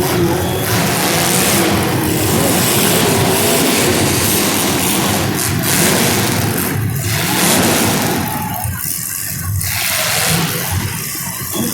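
Engines of several race cars running and revving on track, their pitches wavering and overlapping, easing off slightly about eight seconds in.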